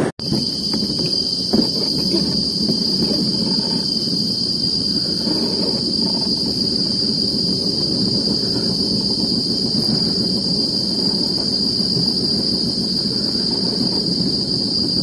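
A steady high-pitched insect drone over a constant low rushing noise, with a single brief knock about a second and a half in.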